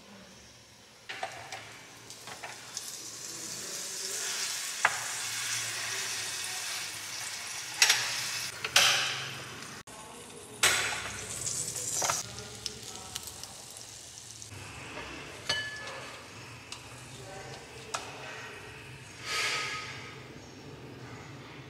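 Frozen croissant dough sizzling as it cooks in an electric waffle maker. In the second half come several sharp clicks and knocks as the waffle maker is handled and the croffles are lifted onto a plate with wooden tongs.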